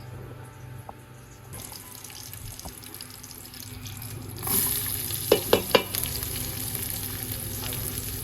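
Cooking sizzle that jumps suddenly louder about halfway through, as food goes into hot oil. Three sharp clinks come quickly just after, then a steady sizzling.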